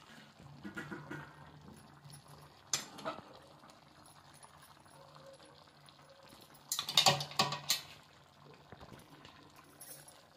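Chickpea curry simmering quietly in a pan, with a short clatter of metal kitchen utensils about seven seconds in, the loudest sound here.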